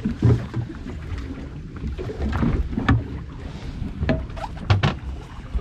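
Wind and water noise on a small boat at sea, with a steady low rumble on the microphone. Several sharp knocks and clicks come through it, one just after the start and a loud pair near the end.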